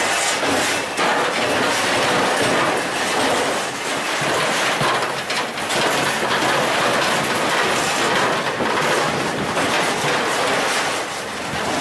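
Fish-handling conveyor and deck machinery on a fishing boat, running with a steady, dense mechanical clatter.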